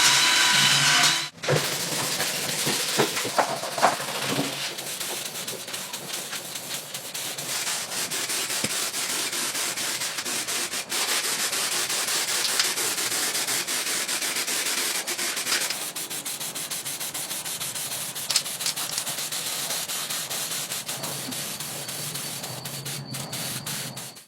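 Sanding of a part: steady abrasive rubbing. It follows a short steady whine that cuts off about a second in.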